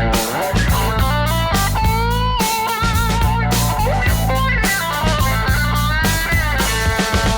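Music: a synthesizer lead line with pitch bends and vibrato, played over a steady bass and drum beat. This is typical of a demo of a restored MCS70 synthesizer.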